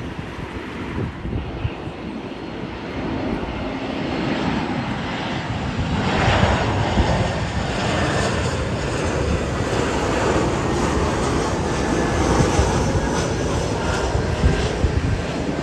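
Airbus A321 airliner's jet engines on landing approach, a steady noise that grows louder from about four seconds in and stays loud, with a faint high whine over it.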